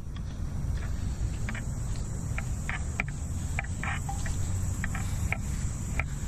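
A steady, high-pitched chorus of insects (crickets) over a low outdoor rumble, with irregular short scratchy sounds scattered through it.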